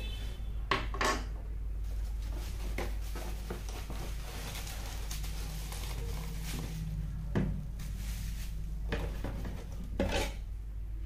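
Cardboard box and plastic bubble wrap being handled as a wrapped light is pulled out of its box: scattered knocks, scrapes and crinkly rustles, loudest about a second in and again near the end.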